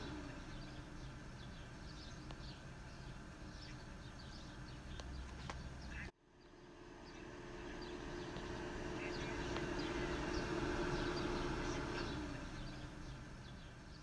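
Outdoor ambience: birds chirping in many short, high calls over a steady low hum. The sound breaks off suddenly about six seconds in and fades back up.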